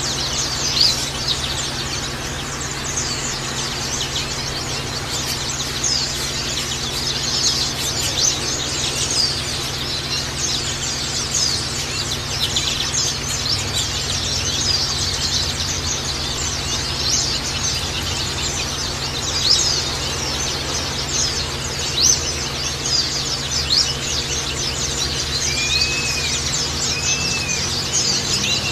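White-eyes (pleci) chirping and twittering in a continuous dense stream of rapid high chirps, the kind of recording played as a lure to get captive white-eyes singing. Near the end a couple of short, lower arched whistles stand out, over a faint steady hum.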